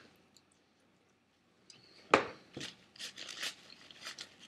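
Burger wrappers and food being handled during eating. A sharp knock about two seconds in is followed by a run of short crackling rustles and clicks.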